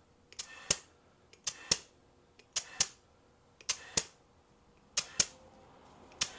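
Air chuck pressed onto the fill valve of an Air Lift airbag in short bursts, about one a second: each a click, a brief hiss of compressed air going in, and a click as it comes off, as the bag is filled toward 50 PSI.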